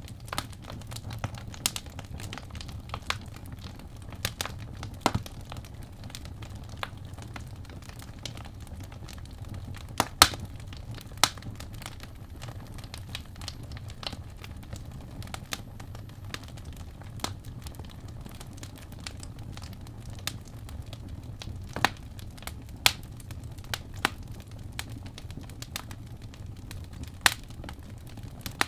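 Wood fire crackling in a fireplace: irregular sharp pops and snaps over a steady low rumble of the flames, with the loudest pops about ten seconds in and again a little past twenty seconds.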